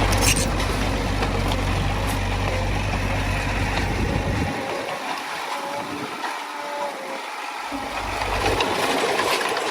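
Heavy diesel earthmoving machinery running steadily with a low rumble. The deep rumble drops away about halfway through and comes back near the end.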